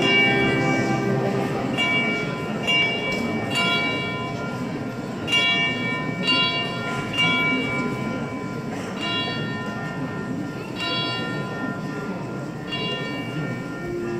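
Church bells ringing: a string of strikes every one to two seconds, each leaving several ringing tones that fade slowly, over the low murmur of a crowd.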